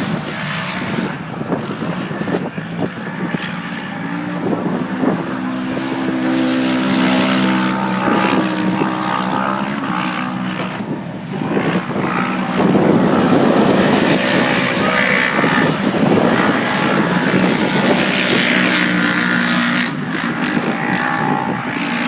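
Off-road race vehicle's engine running hard, its pitch rising and falling as the throttle opens and closes, with wind and rough-ground noise mixed in.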